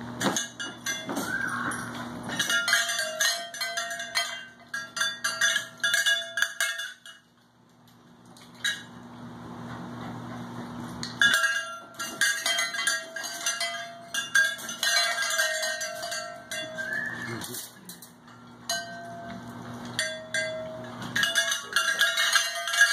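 Puppies eating kibble from stainless steel bowls: a busy run of metallic clinks and rattles, with a bowl ringing briefly now and then. It eases off for a few seconds near the middle, then picks up again.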